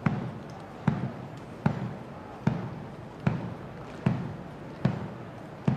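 Muffled military drums beating the slow time of a funeral march, one heavy stroke about every 0.8 s, with no melody between the strokes.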